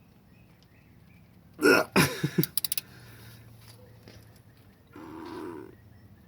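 A man grunting and straining as he hauls a ratchet tight on a transmission drain plug, followed by a quick run of four ratchet clicks, then a second, duller strained breath near the end: the grunt marks the plug reaching full tightness.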